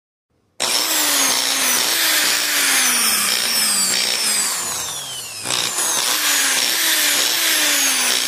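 A power tool's brushed electric motor starts just after the beginning and runs loud, making a strange noise. Its pitch keeps sagging and snapping back up every second or so, with one longer, deeper slowdown about five seconds in. The owner traces the noise and heavy sparking to an oxidised, carbon-fouled commutator and the brushes.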